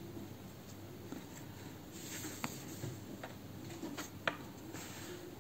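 Faint rustle of yarn being worked on a crochet hook while a single crochet stitch is made, with a few small clicks of the hook.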